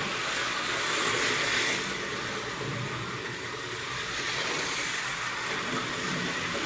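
Scratch-built 1/32 scale slot cars racing on the track, their small electric motors whining steadily, swelling and easing a little as the cars pass.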